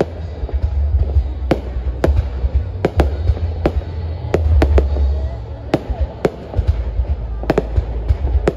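Aerial firework shells bursting overhead in a rapid, irregular series of sharp bangs, several a second, over a continuous low rumble.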